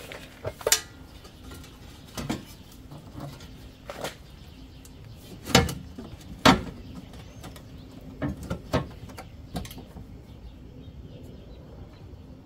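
Scattered knocks, taps and scrapes of a sheet-metal replacement cab corner panel being handled and pressed into place against a truck cab, with the loudest knock a little past halfway.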